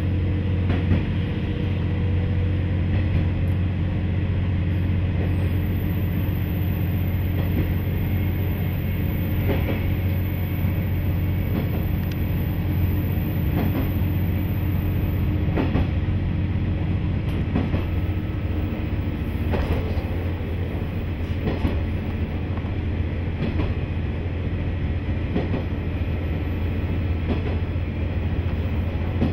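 Inside a KiHa 40 diesel railcar under way: a steady low drone from the engine and running gear, with the wheels clicking over rail joints now and then.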